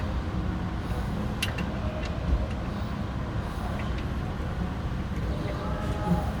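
A few light metal clicks of screws and a screwdriver as a rim lock is screwed onto a door, over a steady low rumble.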